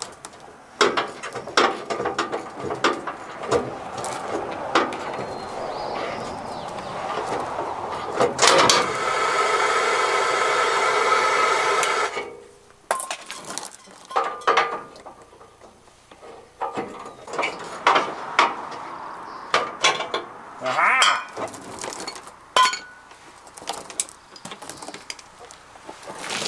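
Hand tools clinking and knocking against the steel bumper and its mounting while a bumper carriage bolt is worked loose, with a steady whirr lasting about three and a half seconds midway.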